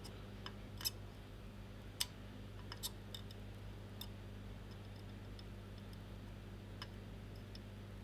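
Faint, irregular little clicks and pops from hand-soldering through-hole connector pins with a soldering iron and solder wire, about eight in all, the sharpest about two seconds in, over a steady low hum.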